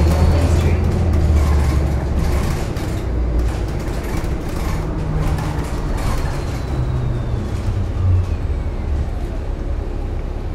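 2018 New Flyer XDE40 hybrid-electric bus, with a Cummins B6.7 diesel and BAE HybriDrive electric drive, heard from on board: a steady low drivetrain rumble. About six seconds in, a faint electric whine falls in pitch.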